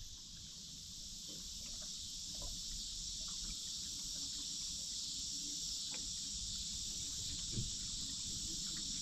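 Steady high-pitched chorus of insects, with a few faint light knocks.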